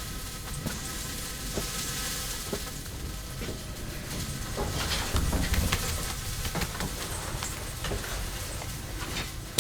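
Food sizzling in a hot pan, with occasional scrapes and clinks of a utensil stirring it.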